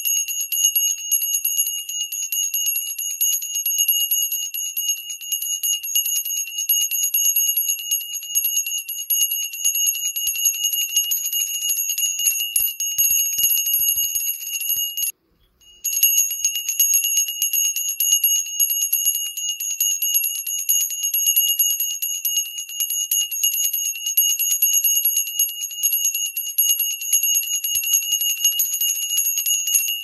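A single 3-inch Sarana-style brass temple bell ringing continuously, its clapper striking rapidly over and over, giving a bright, high ring. The ringing breaks off briefly about fifteen seconds in, then starts again.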